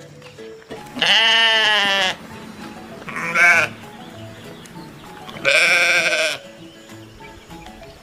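Young goat bleating three times: two long bleats of about a second each, with a shorter, higher one between them, each bending up and down in pitch. Quiet background music runs underneath.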